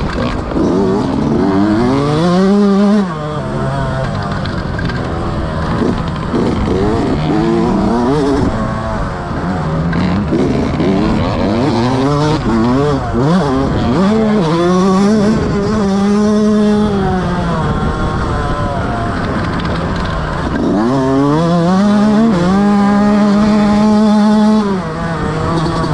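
Motocross motorcycle engine revving hard, its pitch climbing through the gears and holding high, then dropping away as the throttle is shut, several times over.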